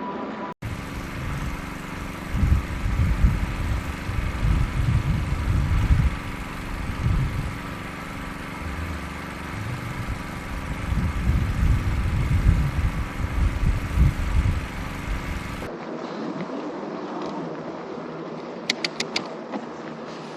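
Riding on a fat-tyre e-bike: gusting wind buffets the microphone over a steady hum of motor and tyres. About 15 seconds in the sound changes to a quieter stretch with a quick run of clicks near the end.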